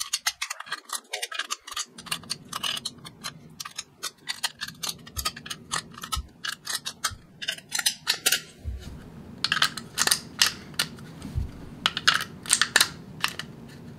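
Speed Beez lever loader working 9mm cartridges into a Sig Sauer P365 12-round magazine: a long run of sharp plastic-and-metal clicks as each round is pushed down by the lever and slid in under the feed lips.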